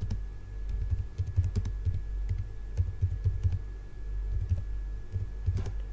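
Typing on a computer keyboard: a run of irregular keystrokes as a few words are typed.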